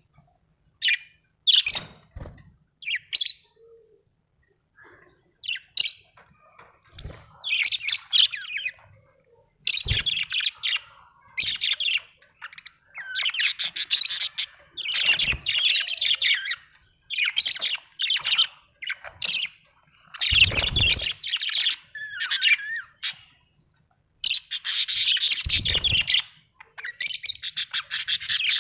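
Budgerigars chirping and warbling in short bursts with brief pauses, breaking into a fast chatter near the end. A few low thumps sound among the calls.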